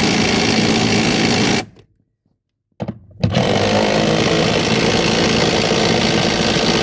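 Impact wrench running in two long bursts. The first stops about a second and a half in, and the second starts about three seconds in and runs on for about four seconds.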